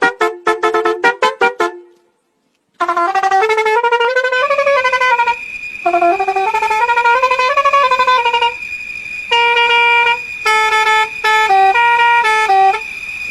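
Pakistani bus's musical multi-tone horn: a quick run of short honks, about four a second, then after a pause of about a second a tune of stepped and gliding horn notes, with a steady high tone underneath.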